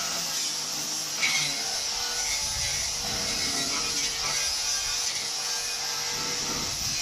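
Angle grinder cutting through the steel chassis outrigger, a steady high hiss of the disc biting into the metal, with a brief louder bite about a second in.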